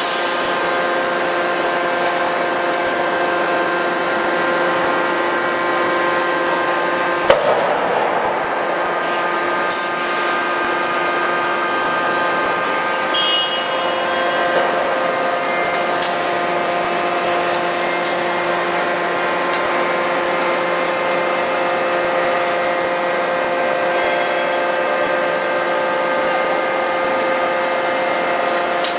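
Forging hammer machinery running with a steady hum made of several constant pitches, with one sharp hammer blow about seven seconds in.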